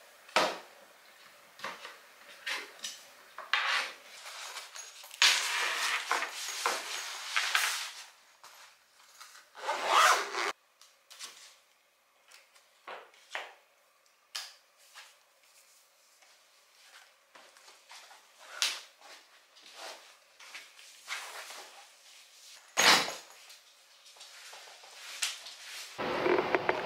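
Handling sounds of getting ready: a click as a laptop lid is shut, then scattered taps, knocks and rustling of cloth bags and clothing, with a few sharper knocks along the way. Near the end a steadier hum comes in.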